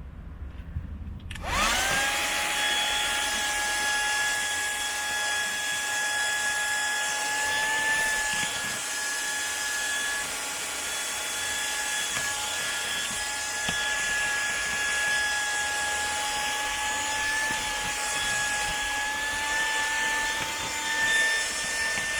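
SEHENTOOLS CV108 12 V car vacuum cleaner switched on about a second and a half in: its motor spins up with a quick rising whine, then runs steadily with a high whine over rushing air, the pitch edging up slightly near the end.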